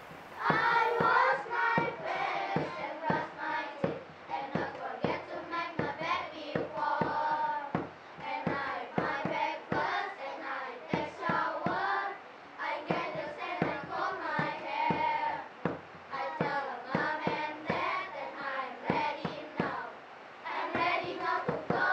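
A group of children singing a song together, with claps through it.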